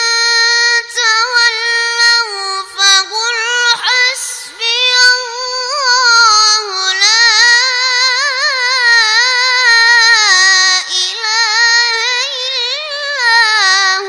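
A boy reciting the Quran in melodic tajweed style: one long, high-pitched phrase with a wavering, ornamented melody, broken only by a few short pauses.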